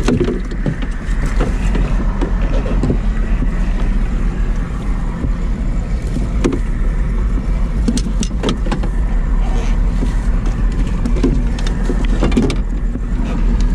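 Small boat's motor running steadily, a constant low hum, with scattered clicks and knocks from the wire-framed landing net being handled.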